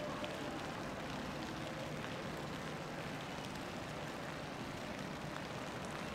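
Steady city street ambience: an even hum of traffic noise.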